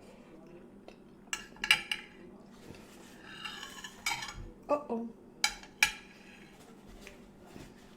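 Cutlery clinking and scraping against a plate: a few sharp clinks, a scrape a few seconds in, then more clinks.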